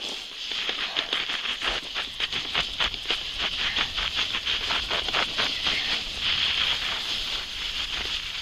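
Wooden sledge's runners hissing and scraping over packed, bumpy snow on a downhill run, with a rapid, irregular clatter of jolts and crunches. The clatter is thickest in the middle and eases to a smoother hiss near the end.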